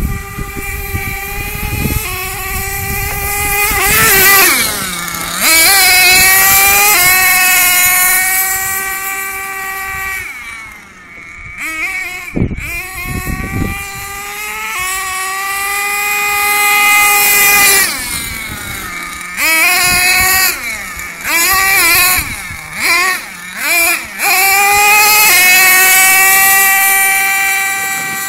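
Axial .32 nitro engine in an RC monster truck revving hard: a high-pitched whine that climbs, holds at high revs for a few seconds and drops back, several times over. A run of quick throttle blips comes about two-thirds of the way in.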